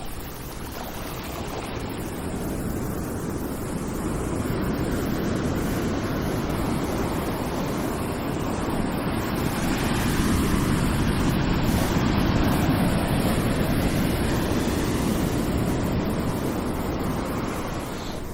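Ocean waves washing in, a steady rushing surf that swells slowly to a peak about two-thirds of the way through and then eases off.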